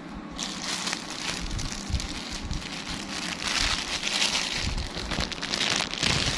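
Packaging being opened and handled: irregular rustling and crinkling with many small crackles, starting about half a second in and louder in bursts near the middle and end.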